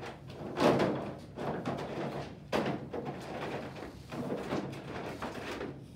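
A series of sudden knocks and clattering noises, as of objects being handled and set down, the loudest under a second in.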